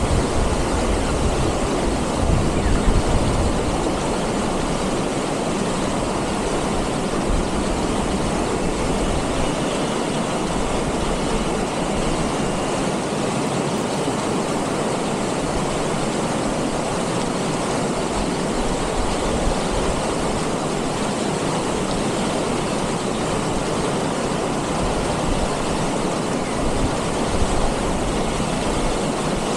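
Fast mountain stream rushing and splashing over rocks in shallow rapids: a loud, steady roar of white water.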